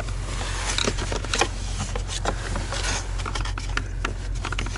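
Irregular small clicks and scrapes as a little screwdriver picks through the plastic honeycomb grille of a cab air-filter housing, nudging the filter in bit by bit. A steady low hum runs underneath.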